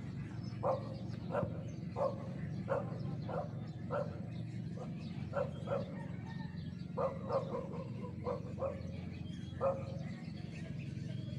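An animal calling over and over in short pitched calls, about one or two a second with a short break around the middle, over a steady low rumble.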